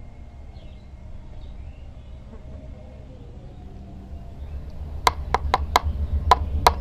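A low steady rumble, then from about five seconds in a quick, uneven run of sharp clicks and knocks as fingers handle a miniature toy hand pump.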